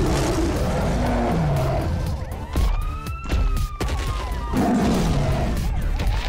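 Cartoon action soundtrack: music mixed with car engine rumble and a wailing tone that rises and falls slowly, once in the middle and again near the end.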